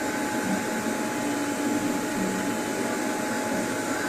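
FlashForge Creator 3 3D printer running as it prints the last top layer: a steady hum of its fans, with the stepper motors' whine stepping to new pitches every second or so as the print head changes moves.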